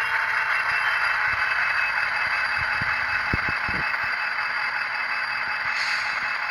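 Steady diesel prime mover sound of an EMD 16-710G, played through the small speaker of an ESU LokSound DCC sound decoder in an N-scale GP60 model at low throttle, speed step 1. A few faint knocks fall in the middle.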